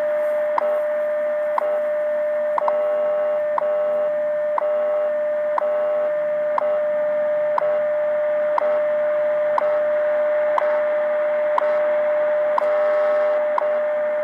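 Shortwave radio tuned to a UTC time-signal station: a steady audio tone with a short tick every second, the station's seconds pulses, under a hiss of static. A few times a cluster of higher tones sounds for about a second.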